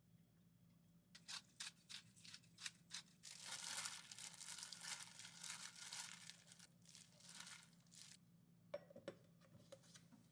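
Disposable plastic glove crinkling as a gloved hand tosses shredded carrots in a glass bowl: a string of sharp crinkles, then several seconds of continuous rustling, and a few light knocks near the end.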